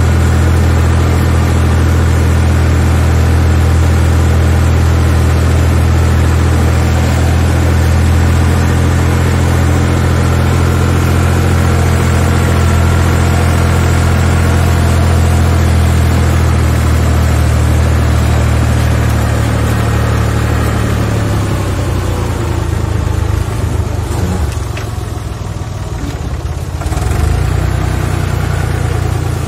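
Tractor engine running with a steady low drone while the tractor is driven. About two-thirds of the way in the engine note changes and drops, dips in level for a few seconds, then picks up again near the end.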